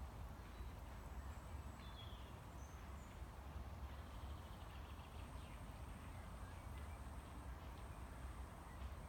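Faint outdoor ambience: a steady low rumble with a few brief, faint bird chirps.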